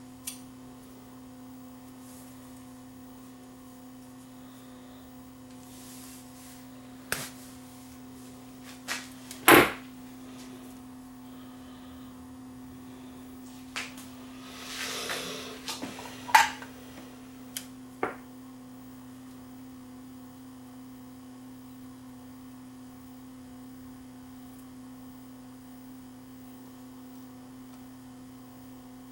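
A few sharp clicks and taps of small tools and parts being handled while a jumper wire is fitted across a failed LED on the light's circuit board, spread between about 7 and 18 seconds in, with a short rustle around 15 seconds in. A steady faint mains hum runs underneath.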